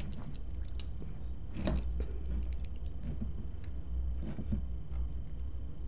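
Small clicks, rattles and rustles of handling a new tripod and its packaging while trying to cut it free, over a steady low hum.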